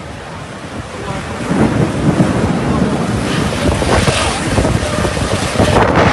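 Wind buffeting the microphone over the rushing noise of a rainstorm, swelling louder about a second and a half in.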